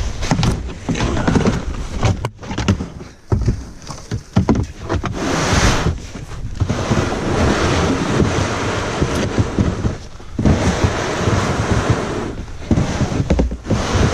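A plastic whitewater kayak sliding down a snowy bank, its hull scraping and hissing over the snow in uneven surges with short pauses, and spruce branches brushing past the boat.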